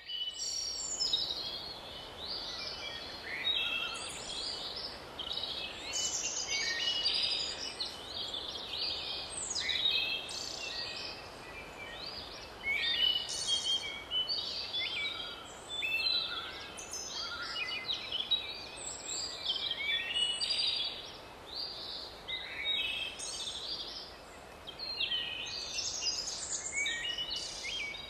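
Many birds chirping and singing over one another in a continuous dense chorus of short high chirps, over a steady background hiss.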